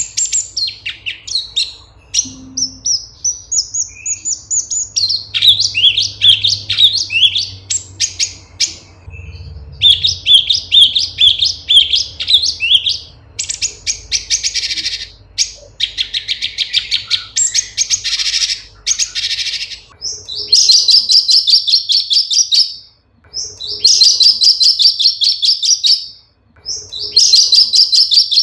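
Cucak cungkok (leafbird) singing a fast, varied song of chattering trills and whistled phrases. In the last third it switches to repeating one dense trilled phrase, about two to three seconds long, with short pauses between.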